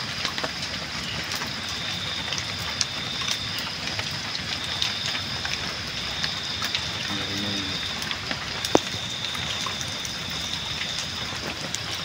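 Wood campfire burning with constant crackling and many small pops, and one sharp, louder pop about three quarters of the way through.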